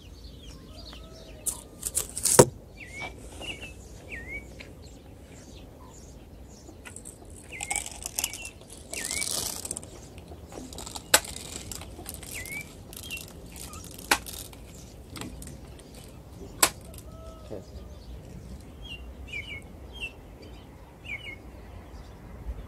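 BB gun shots: sharp cracks, a quick cluster with the loudest about two seconds in, then single shots a few seconds apart in the second half. Small birds chirp softly between the shots, and there is a brief rustle in the middle.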